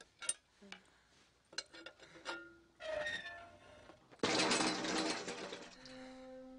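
A few clicks as the pin is pulled from the flagpole's hinged base, then a loud crash about four seconds in as the flagpole falls and hits the ground. Sustained orchestral notes begin near the end.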